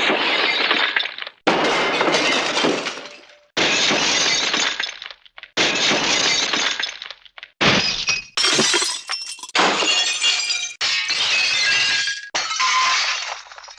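A string of classic Hanna-Barbera cartoon smash sound effects played one after another: about eight crashes of breaking and shattering, each hitting suddenly and clattering away over a second or two. The later ones ring with bright tinkling debris.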